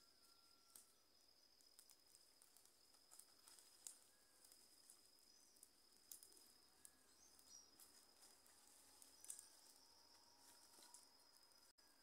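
Near silence in the forest: a faint steady high-pitched insect buzz, a few soft bird chirps, and scattered faint crackles from a small campfire of damp wood just catching. The crackles peak twice, about four seconds in and again near nine seconds.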